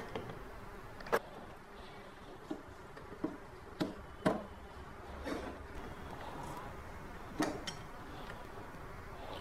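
Scattered light metallic clicks and taps as a spanner works the blade-fixing bolt of a wall chaser, tightening its stacked diamond blades. There are about seven clicks over several seconds, with gaps between them.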